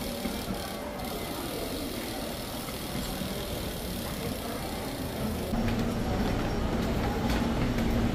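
Subway train running, a steady rumble. About five seconds in the sound changes abruptly and gets louder, with a steady hum and a few sharp clicks.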